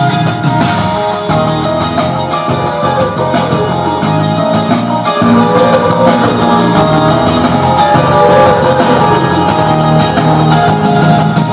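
Rock music with guitar and drums playing loudly through a Philips HLX2100 soundbar, picked up by a camera's built-in microphone.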